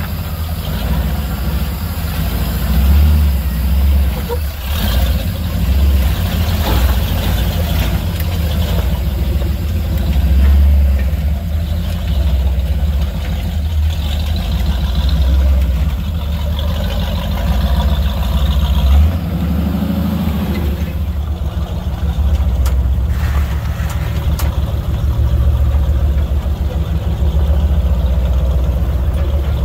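Off-road recovery rig's engine running at a slow crawl with a steady low rumble as it tows a disabled Jeep Wrangler hanging from its crane boom over rock.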